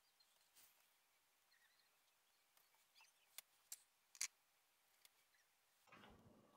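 Near silence: room tone with a few faint clicks, three close together about three and a half to four seconds in, and faint rustling near the end.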